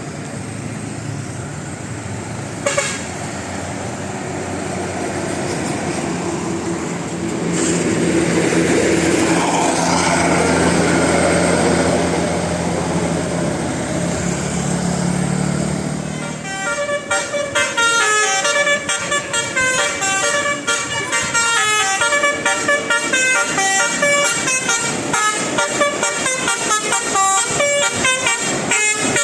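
A bus engine running and drawing near, then, just past halfway, a multi-tone 'telolet' bus horn with roof-mounted horn trumpets playing a fast tune of stepped notes.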